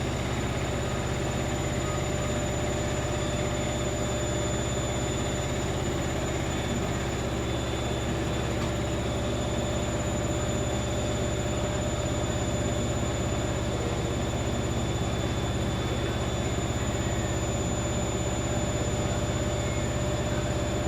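Steady machine hum with a thin high whine running through it, unchanging throughout.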